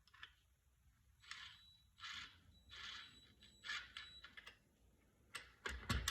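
Quiet hand work on furnace parts during an igniter replacement: short scraping rustles about once a second, then a few sharp clicks and a low knock near the end.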